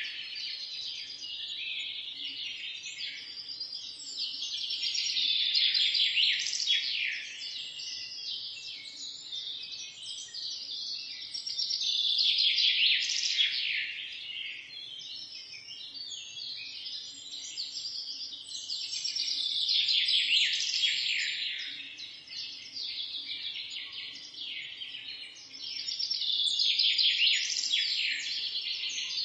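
Many small birds chirping together in a dense high chorus that swells and fades in waves about every seven seconds, over a faint steady low hum.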